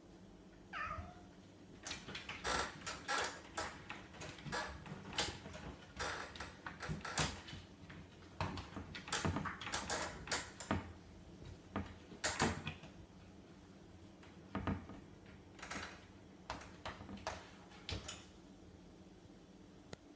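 A cat meows once, briefly, about a second in, then a long run of irregular knocks, clatters and rustles as items in a fridge are pushed and moved about, with a short lull around the middle.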